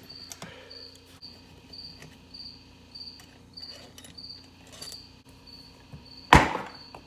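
A cricket chirping steadily, a short high chirp about twice a second, with faint clicks of work on the engine. About six seconds in comes one loud, sharp knock that rings briefly.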